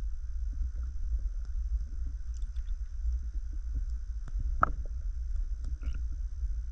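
Underwater sound picked up by an action camera in its waterproof housing: a steady low rumble of moving water with scattered faint clicks and crackles, and one sharper click about halfway through.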